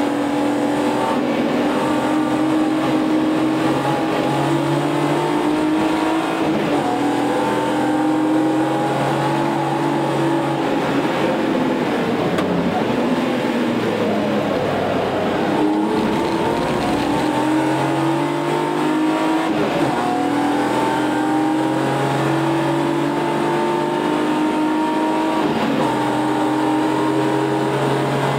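A BMW track car's engine heard from inside the cabin, driven hard on a circuit lap: the pitch climbs and drops back at each upshift, falls away as the car slows for a corner about halfway through, then climbs again through the gears as it accelerates onto the straight.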